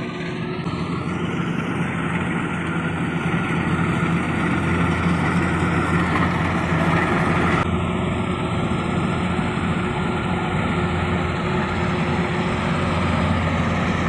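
Kubota rice combine harvester running steadily as it cuts and threshes rice: a continuous engine hum with a faint steady whine above it, growing a little louder over the first few seconds as the machine comes closer.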